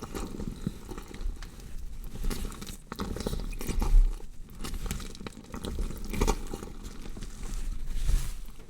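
Gore sound effect of a body being dissected: continuous wet crunching, squelching and tearing of flesh, with louder surges about four seconds in and again near the end.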